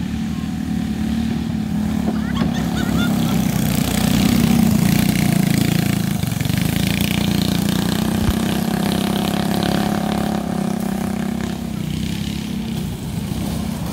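Go-kart engines running as the karts race round the track, the engine note swelling and shifting in pitch as they pass, loudest about four to five seconds in and easing off near the end.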